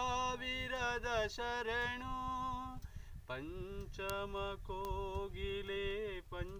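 A man singing unaccompanied in a fairly high voice, holding long notes with small ornamental turns, with a brief pause about three seconds in.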